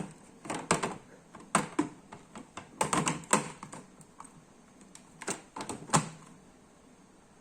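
Irregular clicks, taps and knocks from a food waste grinder being handled and plugged in. The machine is not running yet. The clicks come in uneven clusters and stop about six seconds in.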